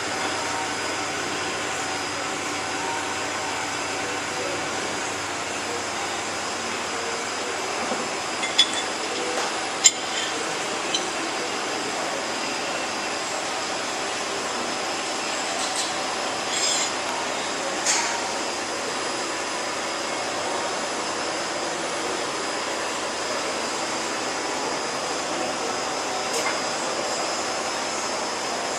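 Bench grinder motor and wheel running steadily, with a few sharp clicks and two brief grinding scrapes about halfway through as a steel knife blade touches the wheel.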